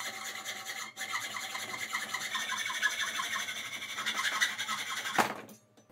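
Hand hacksaw cutting a clamped workpiece with steady back-and-forth strokes, pausing briefly about a second in. The sawing stops a little over five seconds in with a sharp knock.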